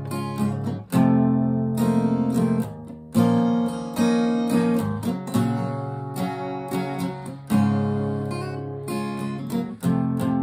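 Acoustic guitar strumming chords. Each chord is struck firmly about every two seconds and left to ring out, with lighter strokes in between.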